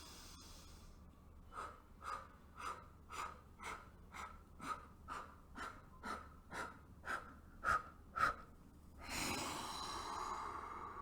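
A woman's breath in, then about fourteen short, forceful puffs of breath blown out through pursed lips, roughly two a second, like blowing out many birthday candles one shot at a time, with the last two puffs the strongest: the Mukha Bhastrika cleansing breath, emptying the lungs in stages. A longer breath follows near the end.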